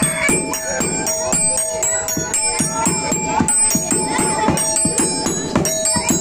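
Topeng monyet street-show music: a small metal gong or pan ringing over a quick, steady drum beat.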